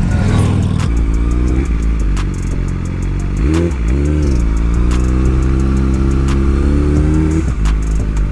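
Motorcycle engine running at low speed, heard from the bike itself, with a quick rev up and back down about three and a half seconds in and a brief dip in pitch near the end.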